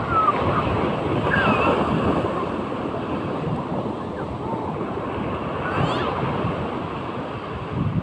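Sea waves surging and breaking close by, a continuous rushing that swells and eases.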